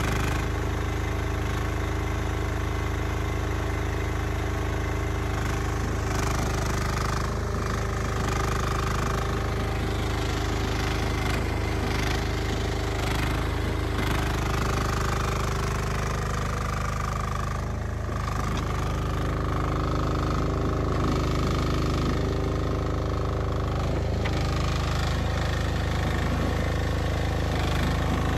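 HT08 mini excavator's engine running steadily, with a higher whine that comes and goes several times.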